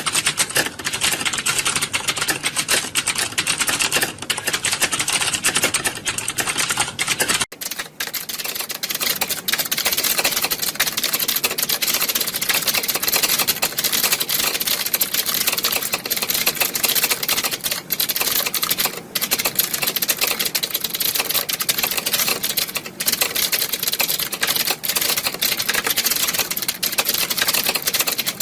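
Many computer keyboards typed on at once, a dense, unbroken clatter of overlapping key clicks like a hall full of typists. About seven and a half seconds in the sound changes abruptly, with less low end after the change.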